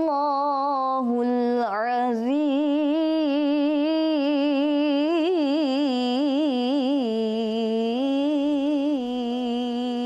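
A young woman's voice reciting the Qur'an in melodic tilawah style. It is one long phrase of held, ornamented notes that waver up and down, with a short break about a second in.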